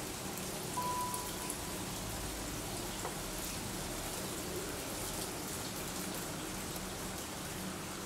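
Light rain falling as a steady, even hiss with faint pattering, and one brief high steady tone about a second in.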